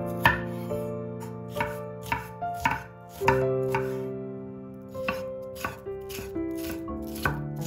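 Chef's knife slicing and dicing a bell pepper on a wooden cutting board: a series of sharp, irregular knife taps against the board, over soft background music with held notes.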